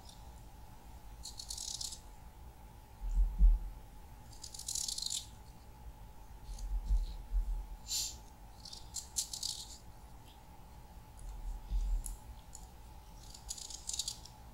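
Kitchen knife slicing through a raw peeled potato held in the hand, making short crisp cutting sounds every few seconds. Dull low thumps come in between as the slices are laid on raw rice in a metal baking tray.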